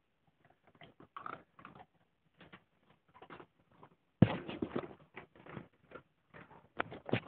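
German shorthaired pointer making a run of short, irregular noises from about a second in, louder and denser from about four seconds in.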